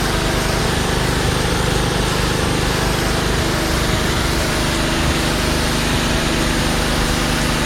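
Karcher K2400HH gas pressure washer running at a steady engine speed, without surging.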